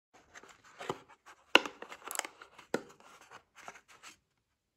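A braided charging cable being pulled out of its cardboard box tray: irregular rustling and scraping of cardboard with a few sharp knocks, the loudest about a second and a half in and again near three seconds.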